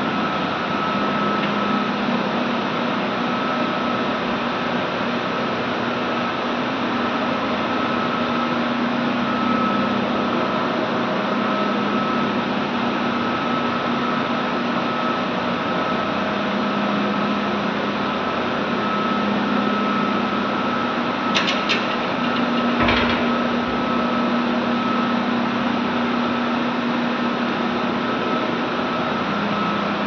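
Steam boiler plant machinery running steadily: a continuous rush with a low hum and a higher whine held at one pitch. A few brief clicks come about three-quarters of the way through.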